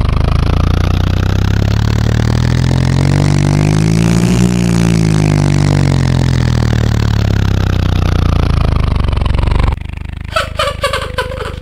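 Monster truck engine sound effect, loud and steady, its pitch rising to a peak about halfway through and then falling away, cutting off suddenly near the end. Just before the end a high, giggly voice begins.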